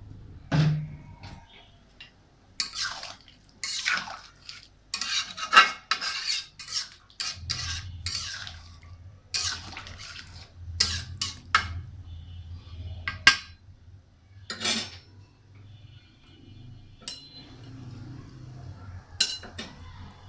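Metal kitchenware clattering: utensils and pots knocking and scraping against each other in an irregular run of sharp clanks, busiest in the first half.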